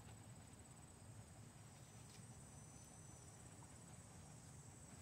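Near silence, with faint steady high-pitched insect chirring, like crickets, and a faint low rumble underneath.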